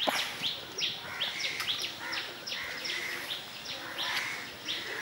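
Birds chirping in a steady run of short, falling calls, about two or three a second, with a single sharp knock at the very start.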